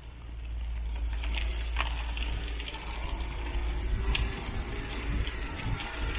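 Wind rumble on the microphone over the crunch of wheels rolling along a gravel path, with scattered small clicks of stones.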